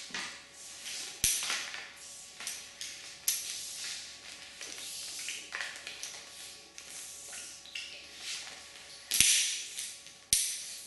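Several pulls on the recoil starter of a Honda GX200 engine, each a short whooshing rasp, with a few sharp clicks, and the engine never fires, because the ignition switch is still off.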